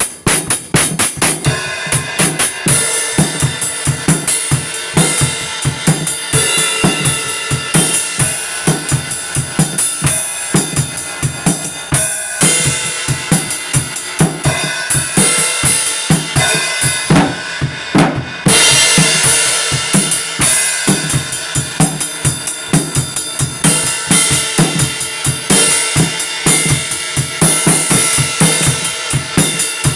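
Drum kit playing a steady beat, with kick, snare and cymbals; the cymbals drop out for a moment about two-thirds of the way through, then come back in.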